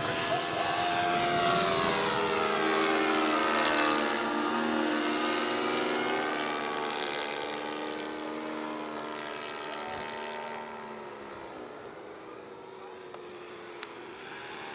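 Saito 82 four-stroke glow engine of an RC Seagull Decathlon model airplane in flight, its pitch gliding up and down as it manoeuvres. It is loudest about three to four seconds in as the plane passes close, then fades as it flies farther away.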